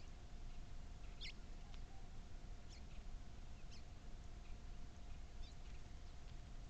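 Short high-pitched squeaks from a small animal, scattered about once a second with the strongest about a second in, over a low rumble and a faint steady tone.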